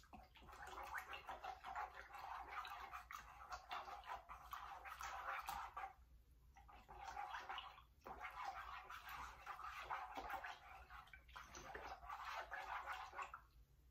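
Water in a metal cooking pot being swished and stirred, a hair-dye bath being mixed, sloshing and splashing in two spells with a short lull about six seconds in.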